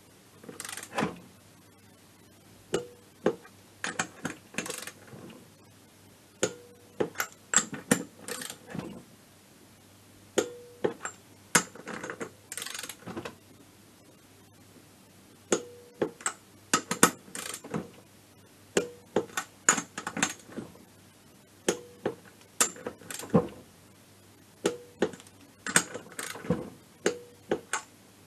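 Ratchet wrench clicking in short, irregular bursts as the cylinder head nuts of a Minarelli two-stroke scooter engine are tightened, with some clicks ringing briefly.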